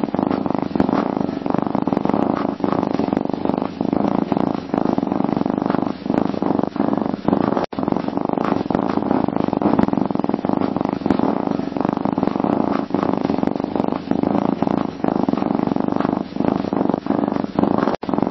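Domestic cat purring steadily and continuously, a low rasping purr with a fine rhythmic pulse, broken only by two very short gaps, one a little before halfway and one near the end.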